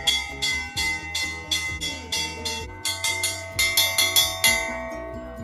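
Hindu temple bell rung rapidly, about three strikes a second, its ringing tones overlapping; the striking stops about four and a half seconds in and the ringing fades.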